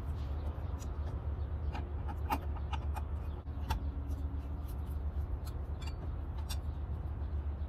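Scattered light clicks and ticks of a screwdriver turning out the screws on a turbo charge pipe, over a steady low rumble.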